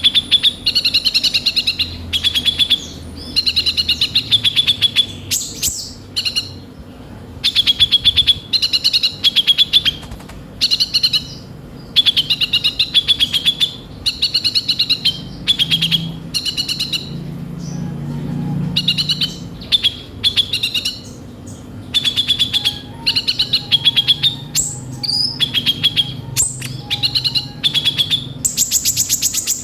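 A kolibri ninja sunbird singing energetically in a rough, full song. Its fast, high-pitched chattering trills come in bursts of about a second, one after another with brief pauses.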